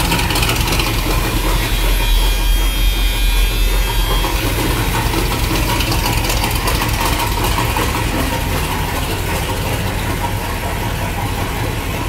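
1976 Chevrolet Corvette V8 idling steadily through its side exhaust pipes, loud and even, growing slightly fainter near the end. The knock the engine is suspected of is hard to pick out under the exhaust at idle.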